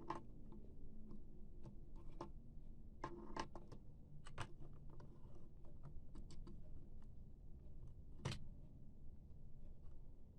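Irregular small clicks and taps of laptop drive parts being handled and tried in place during an SSD swap, with a louder click a little after eight seconds in, over a faint steady hum.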